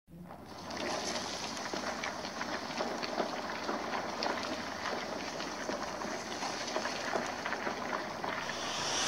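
Logo-reveal sound effect: a steady crackling, sparkling hiss that fades in, then a rising whoosh swelling near the end as the logo comes together.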